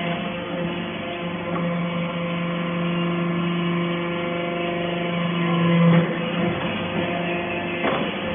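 Industrial baling machinery running with a steady multi-tone hum. A low tone swells from about a second and a half in and drops away about six seconds in, with a few light knocks.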